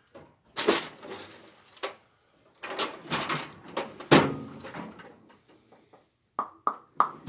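Rummaging through a workshop for a cutting tool: a series of separate knocks and clunks, then three quick short clinks near the end.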